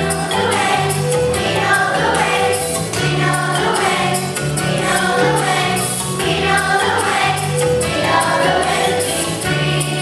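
Music: a group of children singing together in unison over an accompaniment with a steady bass line.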